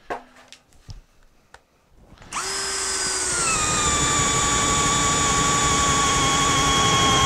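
A few light knocks, then about two seconds in a cordless drill starts up and bores a 1.5-inch spade-bit hole through a doubled-up 2x4. Its motor whine drops in pitch as the bit bites in, then runs steady under heavy load.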